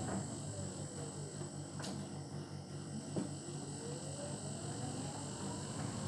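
Hotpoint front-loading washing machine tumbling a load of bedding, with a steady low hum. The drum motor's whine falls in pitch as the drum slows, then rises again as it speeds back up. Two short knocks come about two and about three seconds in.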